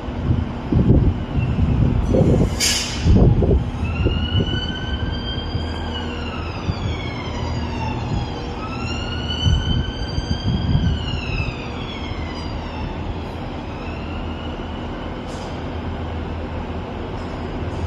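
Emergency vehicle siren wailing, its pitch rising and falling slowly about every four to five seconds, over a steady low engine hum. Near the start there is low buffeting and one sharp click.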